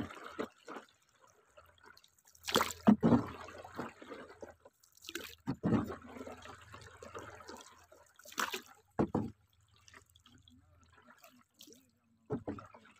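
A paddle dipping into river water and splashing, a stroke about every three seconds, with water trickling and dripping off it between strokes.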